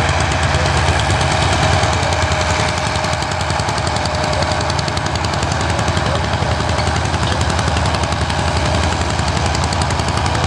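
Vintage tractor engine running steadily under load while pulling a disc plough, with a rapid, even knocking beat from its firing.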